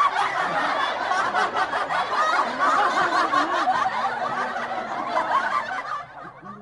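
Laughter, snickering and chuckling with many pitches overlapping, which cuts off suddenly near the end.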